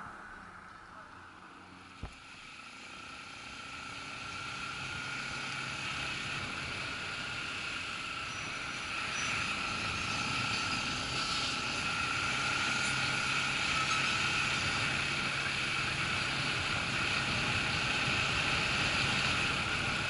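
Motorcycle riding, heard from a camera mounted on the bike: engine and road noise build up steadily as it pulls away and gathers speed. A single sharp click comes about two seconds in.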